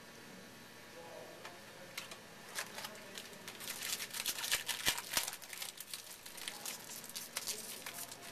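Foil wrapper of a trading-card pack crinkling and tearing as it is opened by hand, starting about two and a half seconds in and loudest around the middle.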